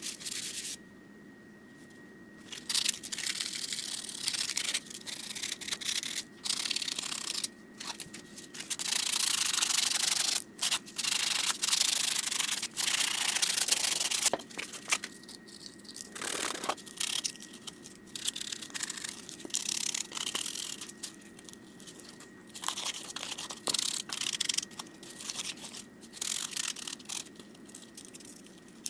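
220-grit sandpaper rubbing back and forth over a helmet mask, scuffing the surface to prep it for primer. The strokes come in uneven runs with short pauses, with a longer unbroken stretch of sanding a third of the way in.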